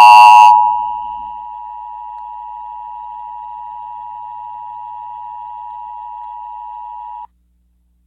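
Emergency Alert System attention signal: a steady two-pitch electronic tone, loud and distorted for about the first half-second, then settling to a quieter, clean tone that cuts off abruptly about seven seconds in.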